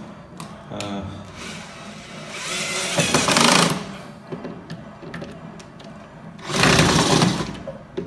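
Battery-powered cordless drill-driver running in two bursts, a longer one of about two seconds that builds up, then a shorter one of about a second, driving a screw into a wooden door frame to fix a door closer's arm.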